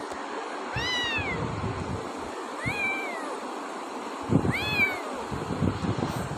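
Tabby kitten meowing three times, each a short high call that rises and then falls in pitch, with rustling and bumps from the hand holding it.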